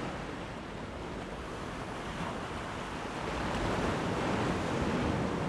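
Ocean waves washing in. A swell builds about three and a half seconds in and eases near the end.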